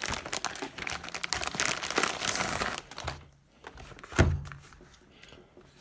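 Packaging crinkling and rustling as the torque wrench set's box is handled and opened, followed by a single thump about four seconds in.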